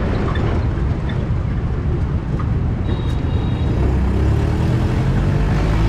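Mahindra MM540 jeep on the move: the engine running under road and wind noise, its note rising slightly about four seconds in.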